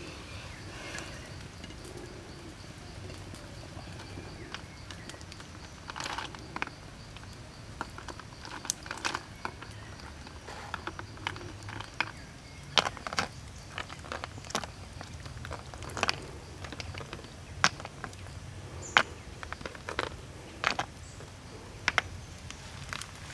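Snail shells knocking against each other and against the rim of a clay pot as the snails are set into it one at a time: sharp, irregular clicks starting about six seconds in, roughly one or two a second, over a low steady background.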